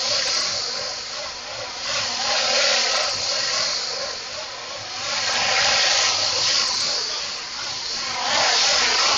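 Machinery noise of a chain-driven pallet conveyor and stretch wrapper running: an even hissing rush that swells and fades every few seconds.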